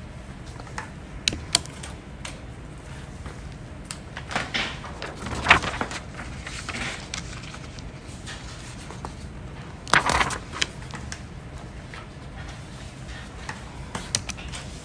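A person hiccuping slowly: a few short, sudden hiccups spaced several seconds apart, the loudest about five and ten seconds in, with faint sharp clicks in between.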